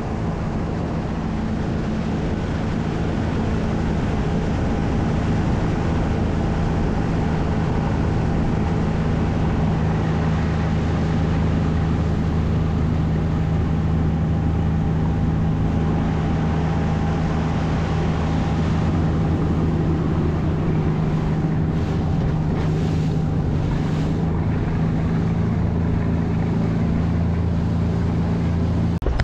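Motorboat engine running steadily at trolling speed, with an even rush of wind and water over it.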